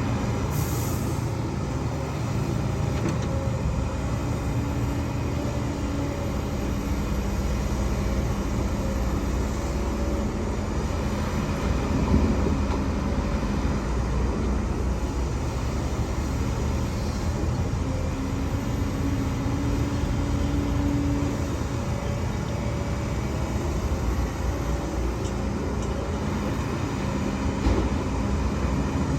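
Diesel engine of heavy earthmoving machinery running steadily under working load, its pitch rising and falling a little as the work goes on.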